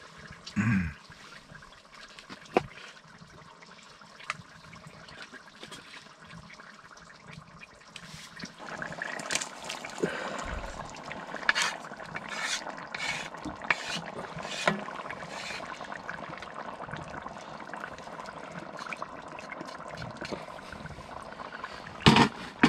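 Stew bubbling in a cast iron pot on a wood stove, with a wooden spoon knocking and scraping in the pot as chopped ham is stirred in; the bubbling comes in about a third of the way through, after a quieter start with a few light clicks. A brief louder noise comes near the end.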